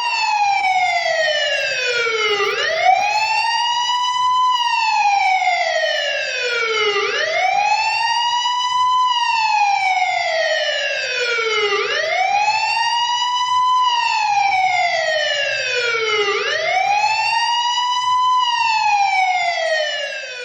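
Siren wailing, its pitch sliding slowly down and back up about every four and a half seconds, four times over, then cutting off suddenly.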